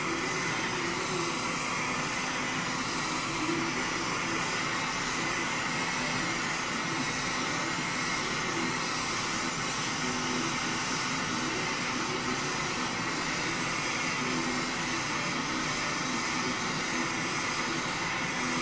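Oxy-fuel torch burning with a steady hiss, its flame played over a strip of silver sheet to soften it by annealing.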